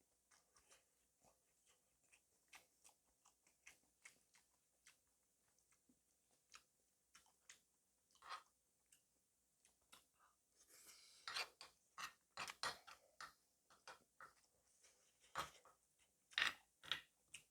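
A person chewing food close to the microphone: a steady run of short, soft, moist clicks, faint at first and growing louder and busier from about eleven seconds in.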